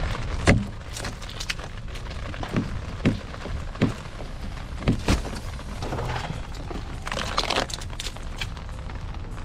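Ice cracking and crunching: about six sharp cracks in the first five seconds, then a stretch of fainter crackling, over a steady rushing noise.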